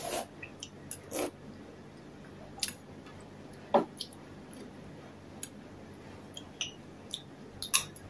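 Eating sounds: a slurp of soup from a metal spoon at the start, then soft chewing and the spoon scraping and clinking in a ceramic bowl of rice. They come as a few short scattered sounds, the sharpest about four seconds in and just before the end.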